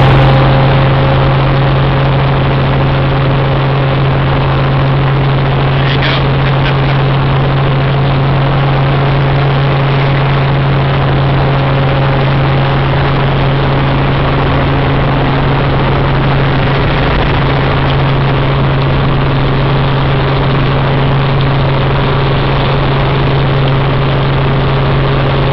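Helicopter engine and rotor noise heard from inside the cabin: loud and steady, with a strong constant low hum under an even rushing noise.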